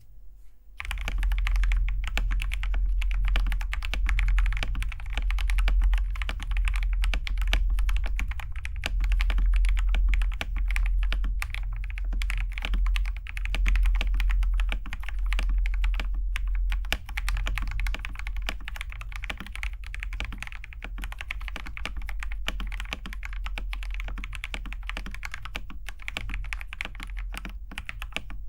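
Fast, continuous typing on a TM680 mechanical keyboard fitted with Akko Jelly Pink linear switches, a dense stream of keystrokes starting about a second in.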